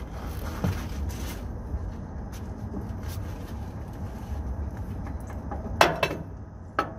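Ratchet tightening the mounting bolt of a semi truck's front shock absorber: scattered metallic clicks and a louder clank about six seconds in, over a steady low rumble.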